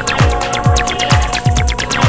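Electronic dance music with a steady kick drum, about two beats a second, under crisp hi-hats and held synth tones.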